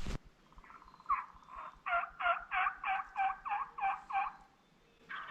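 Turkey yelping: a run of about ten evenly spaced notes, roughly three a second, that stops a little after four seconds in.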